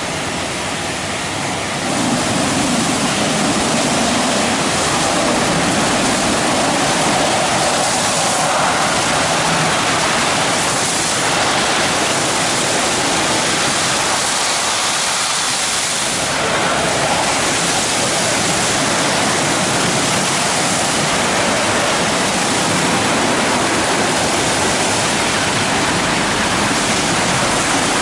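WashTec SoftWash gantry car wash in its brush stage: spinning roof and side brushes scrub the car while water sprays steadily, the noise growing louder about two seconds in.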